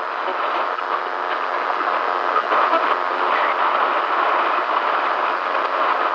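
Hissing, crackling static of a weak broadcast signal, narrow and tinny in tone, steady throughout with a slight flutter.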